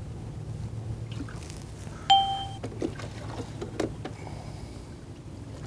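A single sharp metallic ding about two seconds in, ringing briefly, followed by a few light knocks as a small flounder is handled at the boat's side, over a low steady hum.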